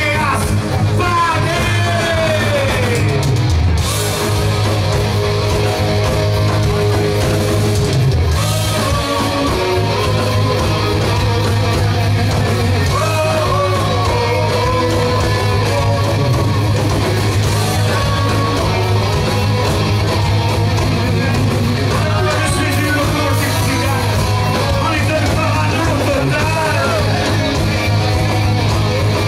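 Live rock band playing loud and steady: electric guitars, bass guitar and drums, with gliding melodic lines over a strong bass.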